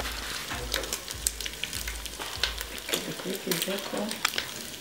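Meat and onions frying in an aluminium pot: a steady sizzle broken by many sharp crackles and pops.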